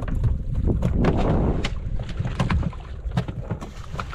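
Wind buffeting the microphone and water lapping against a wooden fishing boat, with scattered small knocks and clicks from handling the line on board.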